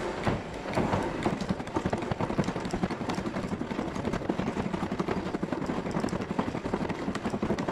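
Powered hydraulic pump running with a rapid, steady chatter, driving an Enerpac hollow-ram cylinder under pressure to pull a bronze bush out of its bracket.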